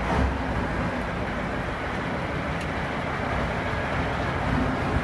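KAMAZ truck's diesel engine running steadily on its first run after a major overhaul.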